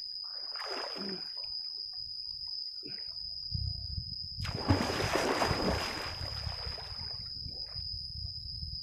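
River water splashing and sloshing as a person swims through it, with one louder, longer burst of splashing in the middle.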